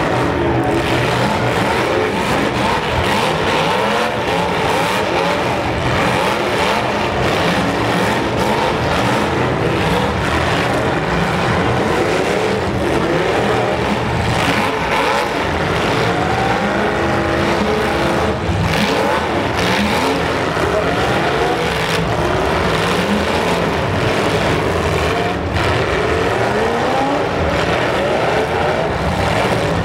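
Several demolition derby cars' engines revving hard at once, their pitches constantly rising and falling as they accelerate into each other. Sharper crash impacts stand out about 18 and 25 seconds in.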